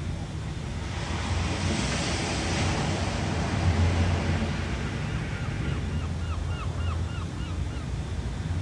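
Ocean surf: a wave washes in, its hiss swelling over a steady low rumble and then easing off. Near the end comes a faint run of short repeated chirps, about three a second.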